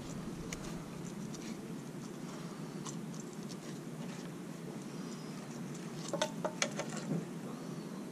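Faint ticks and rustles of hands twisting copper wire around the terminals of a small switch, with a short cluster of sharper clicks about six seconds in.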